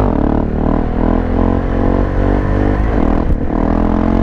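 KTM 690 SMC supermoto's single-cylinder engine accelerating hard, its pitch climbing steadily. About three seconds in it dips briefly at a gear change, then climbs again.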